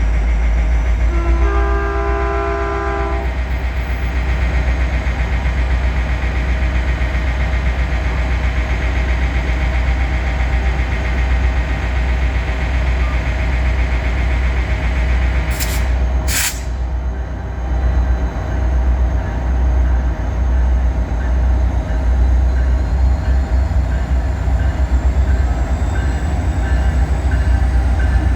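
Caltrain passenger train passing with a steady heavy rumble. About a second in it sounds one short chord-horn blast of about two seconds. Two sharp clicks come a little past the middle.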